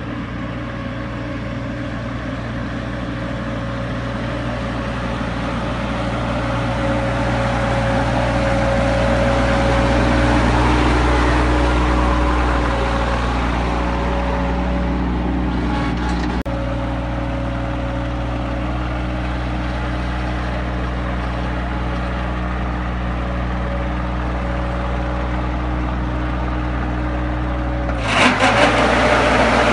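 KIOTI CS2610 compact tractor's diesel engine running steadily while it drives a turbine air-blast sprayer, a continuous engine hum under the rush of the sprayer fan. It grows louder around ten seconds in, and near the end the sound turns abruptly rougher and louder.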